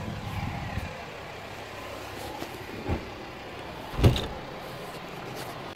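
Steady faint background noise with a few short knocks, the loudest a thump about four seconds in.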